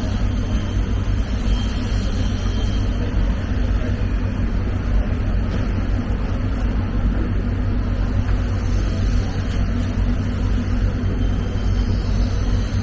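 Steady low rumble of running machinery, even throughout, with no rise or fall.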